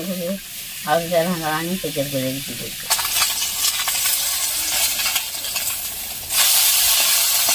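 Small fish sizzling in hot oil in an iron wok, with a metal spatula scraping and stirring them. The sizzle jumps much louder a little past six seconds in. A short stretch of a voice comes before the frying starts.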